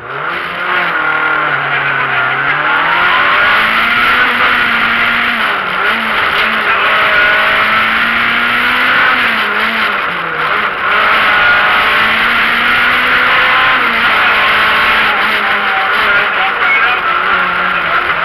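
Peugeot 205 Rallye's four-cylinder engine pulling hard from the start line and accelerating through the gears, its pitch repeatedly climbing and dropping at each change, heard from inside the cabin.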